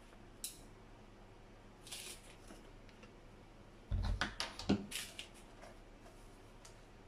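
Small handling noises in a kitchen: a brief rustle, then about four seconds in a quick cluster of light clicks and knocks with a soft thump.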